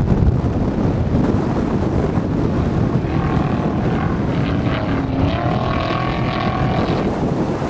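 Off-road race truck's engine running hard in a loud, steady low rumble, with wind on the microphone. From about three seconds in, its engine note comes through as long whines that rise and fall.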